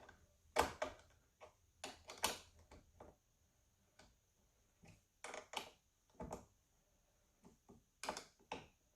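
A 10 mm wrench tightening the nut on a car battery's terminal clamp: scattered small metal clicks and clinks in irregular groups, with short quiet gaps between.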